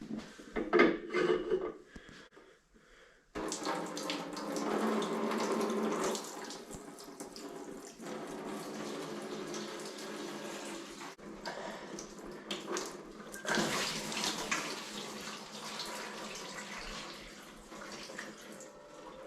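Old oil and gunk pouring and splattering out of a Ford 460 big-block V8 as the engine is turned over after its oil pan has come off. A brief clatter of metal comes first; the pouring starts about three seconds in and runs on unevenly.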